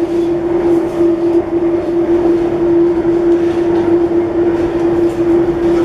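Airport Express metro train running at steady speed, heard from inside the carriage: an even rumble of running noise with a constant humming tone that holds one pitch throughout.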